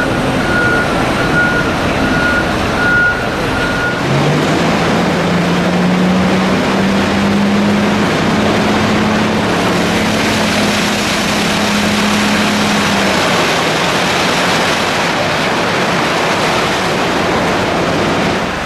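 Komatsu HD785-7 haul truck: its reverse alarm beeps in a steady on-off pattern for the first few seconds. Then the V12 diesel revs up and holds a high steady pitch as the dump body hoists, while the rock load slides out with a dense rushing, rumbling noise. The engine drops off about two-thirds of the way through.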